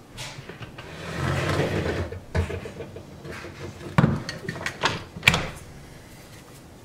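A Samsung dishwasher being tipped upright and shoved into its cabinet opening: a scraping slide about a second in, then several knocks and thumps of its metal body through the middle.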